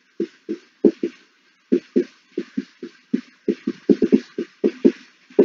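Whiteboard marker squeaking and scratching across the board in many short, quick strokes as handwritten words are written.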